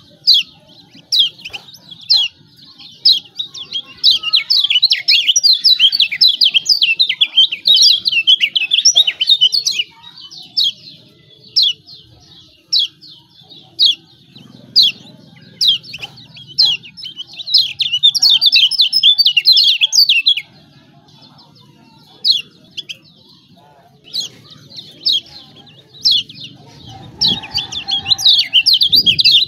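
Kecial kuning (yellow white-eye) giving rapid, sharp 'ciak ciak' chirps. Fast excited runs alternate with single spaced chips, several times.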